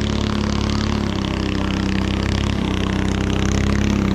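A small boat's engine running steadily at a constant speed, with a fast, even beat, getting a little louder near the end.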